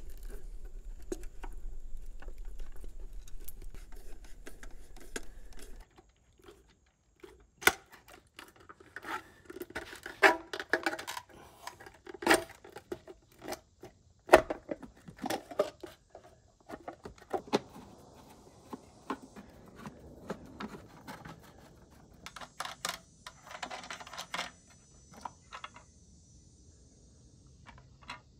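Hands handling the plastic housing, wires and screws of a generator inlet box: scattered clicks, rattles and scrapes, with a sharp knock about fourteen seconds in as the faceplate is pressed onto the box. A low steady hum underneath cuts off about six seconds in.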